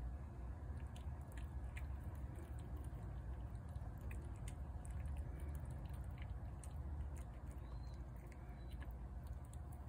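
Feral tabby cat eating wet canned food from a plate: soft, irregular chewing and smacking clicks, over a steady low rumble.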